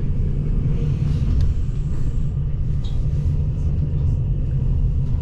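Steady low rumble of a passenger train in motion, heard from inside the carriage.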